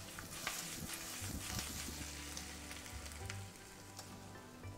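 Sliced onions sizzling in oil in a hot stainless-steel frying pan, with a few faint clicks.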